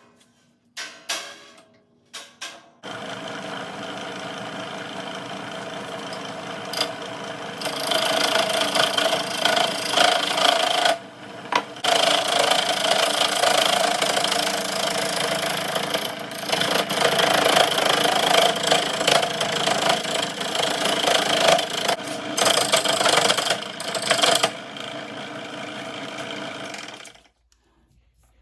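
A few clicks, then an electric motor, most likely the lathe's, switches on and runs steadily. About eight seconds in it grows louder and rougher as material is cut, with a short dip partway through, and it stops suddenly near the end.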